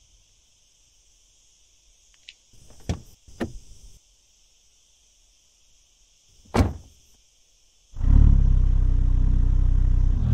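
A couple of soft knocks and then a single sharper thunk from the car's door. About eight seconds in, the Mercedes-AMG SL43's turbocharged 2.0-litre inline-four starts up suddenly and runs loud and steady.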